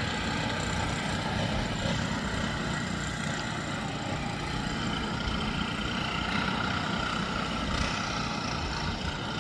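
An engine running steadily, a constant mechanical drone with a faint whine and no change in speed.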